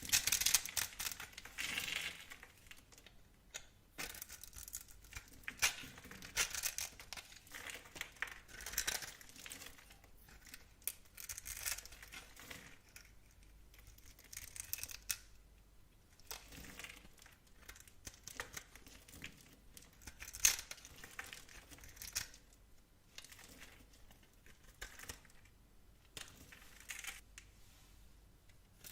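A knife blade cutting and scraping through a bar of soap: a series of crisp, dry crunching and scraping strokes coming one every second or two, with short pauses between them.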